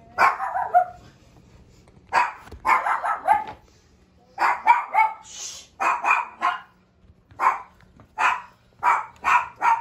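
A dog barking repeatedly, about a dozen barks in uneven bursts.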